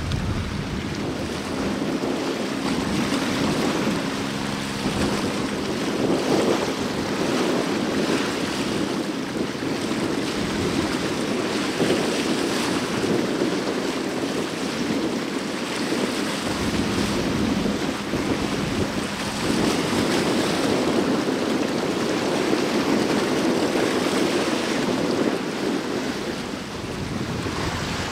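Wind buffeting the microphone over the steady wash of sea water. A low hum shows briefly about four to five seconds in.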